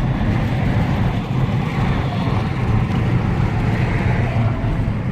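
Steady rumble of a car driving, heard from inside the cabin: engine and road noise with no distinct events.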